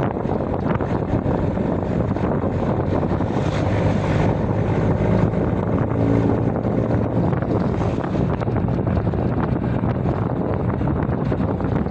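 A steady low rumble of wind on the microphone, with no breaks.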